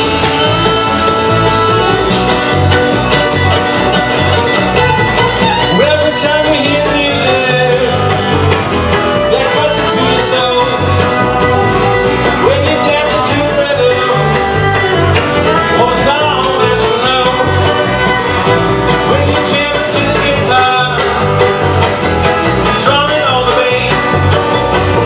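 Live acoustic band playing an up-tempo bluegrass-style tune: bowed fiddle and alto saxophone carry the melody over acoustic guitar, banjo and a steady upright-bass pulse.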